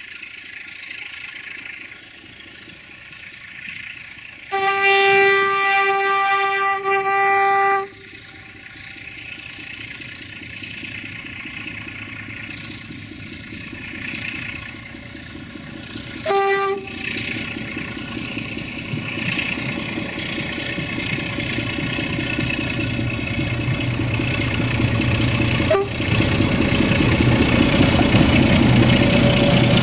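Diesel train sounding its horn in one long blast of about three seconds, then a short blast about ten seconds later. Its engine grows steadily louder as it approaches.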